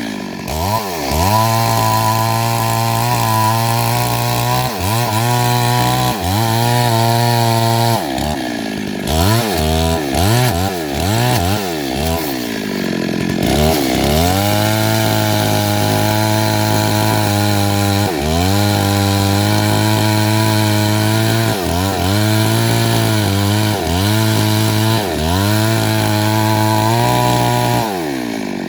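Two-stroke chainsaw running at high revs while felling a big tree. Its engine note keeps dipping and climbing back every second or two as the throttle is eased and reopened, with a run of quicker dips about a third of the way through.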